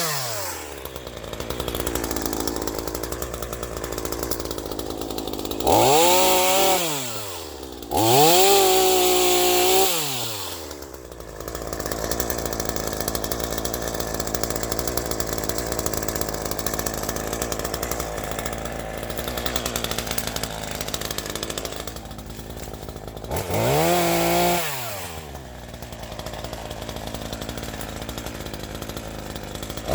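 Two-stroke chainsaw dropping from full throttle to idle at the start, then running low between cuts and revved up three times, each time rising in pitch and falling back.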